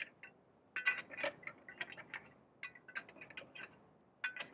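Tire bar clinking against a semi truck's inner dual wheel as it is pried and worked off the hub: a series of light, irregular metallic clicks.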